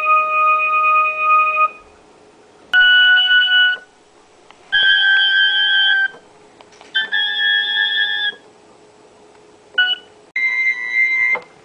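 Electronic keyboard keys pressed by a Border Collie's paw: steady held tones, each press sounding several keys together, about six presses with short quiet gaps between them, one of them only a brief tap.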